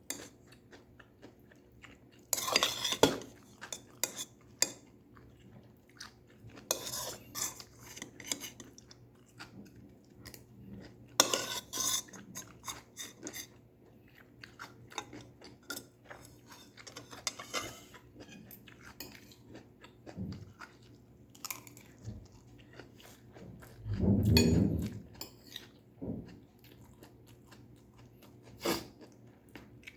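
Eating stir-fried vegetables close to the microphone: utensils clink and scrape on a dish in short bursts, with chewing and crunching between them. There is a low, muffled thump a little past two-thirds of the way through.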